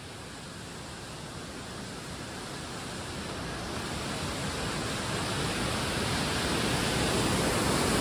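Mountain stream rushing and cascading over rocks, a steady noise of water that grows steadily louder.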